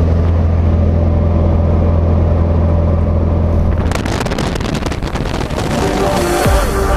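Steady low drone of a small jump plane's propeller engine, heard from inside the cabin. About four seconds in it gives way to a harsher rushing, crackling noise, and an electronic music track begins near the end.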